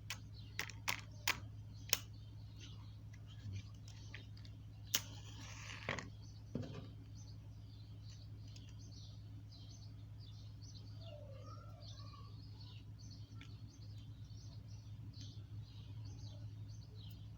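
Faint handling noise: a few sharp clicks in the first two seconds and a brief scrape about five seconds in, as the sound-dampening membrane is picked off a small earphone speaker. Under it a steady low hum and faint bird chirping run on.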